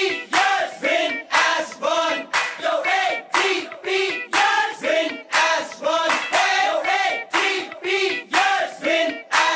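A crowd of voices chanting in unison over a steady beat of hand claps, the same rising-and-falling phrase repeating about once a second.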